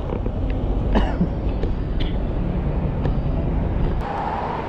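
Street traffic: a steady low rumble of engines with a few short clicks. About four seconds in, the rumble drops away to quieter road noise with a faint steady whine.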